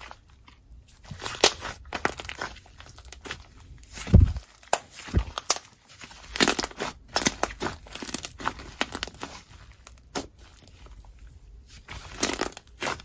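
Slime being worked by hand with clay mixed in: an irregular run of small sticky crackles and clicks, with one dull low thump about four seconds in.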